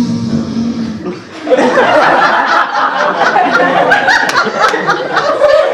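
A person's voice making a held, droning sound effect for about a second, then audience laughter that breaks out about a second and a half in and carries on loudly.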